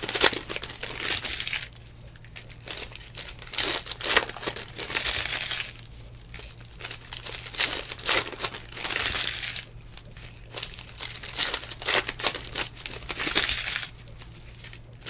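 Plastic-foil wrappers of Panini Legacy Football trading card packs crinkling and tearing as the packs are ripped open and handled. The sound comes in several bursts of a second or two, with short quieter gaps between.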